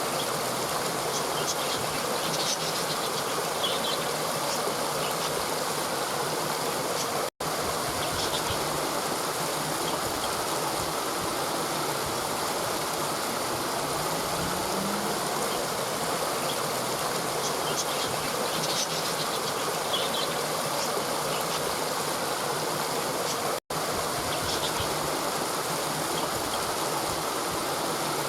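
River water rushing steadily over rocks, with a few faint, short, high bird chirps here and there. The sound cuts out for an instant twice.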